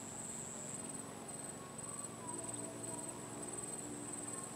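Insects chirring outdoors: a steady, high-pitched trill that pulses quickly.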